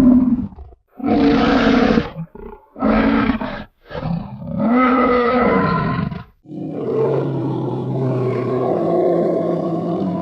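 Bear sound effect: a run of roars and growls broken by short silent gaps, ending in one long growl of nearly four seconds.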